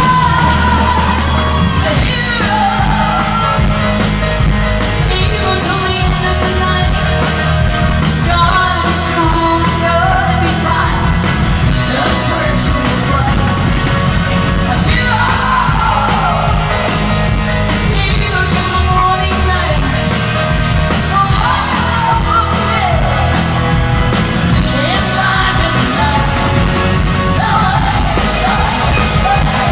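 Live rock band playing, with guitars, drums and keyboards, while a woman sings the lead vocal.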